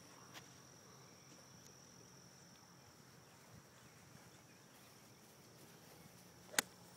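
A steady high insect trill, typical of crickets, and one sharp click near the end as a golf iron strikes the ball.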